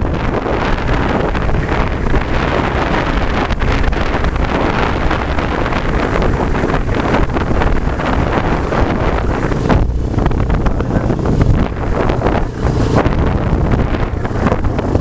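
Heavy wind buffeting on the microphone of a camera riding on a moving motorcycle, over a low rumble of engine and road noise.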